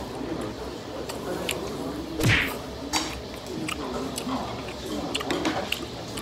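Eating sounds: metal chopsticks clicking against a plate of noodles while he chews, under a low murmur of voice. One short, loud rushing burst about two seconds in stands out.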